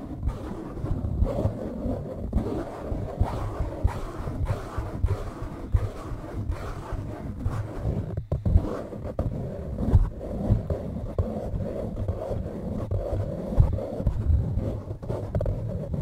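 Close-up breathing and rubbing against a foam microphone windscreen held to the mouth: an irregular, muffled low rumble with scratchy rubs and small clicks.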